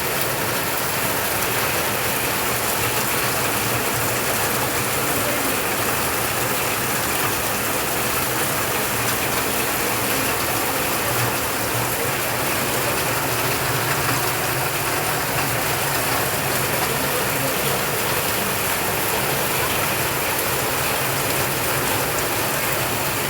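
Steady rain falling, a dense, even patter that holds without a break.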